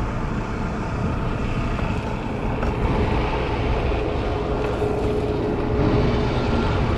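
Steady road and traffic noise heard from a bicycle riding through city traffic, with heavy low rumble from wind on the camera microphone. A steady hum comes in a couple of seconds in and fades near the end.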